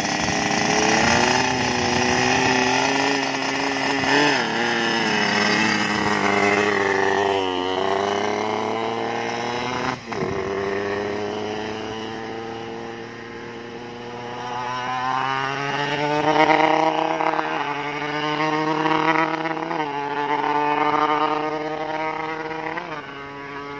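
Race-tuned Yamaha RX-King two-stroke single accelerating hard from a standstill through the gears. Its pitch climbs in each gear and drops back at each shift, several times over. The carburettor is set very rich, and the tuner finds the engine won't rev out (won't 'scream').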